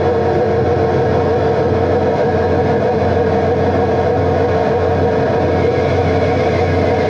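Live noise music: a dense, unchanging wall of electronic noise over a steady drone, at an even loudness throughout.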